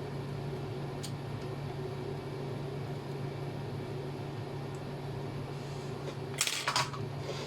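Steady low hum, with a faint click about a second in and a short clatter of handling noise about six and a half seconds in.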